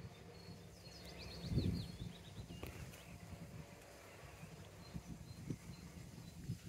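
Quiet outdoor ambience: a bird gives a quick run of high chirps about a second in, over low rustling and a thump of handling noise from the hand-held camera.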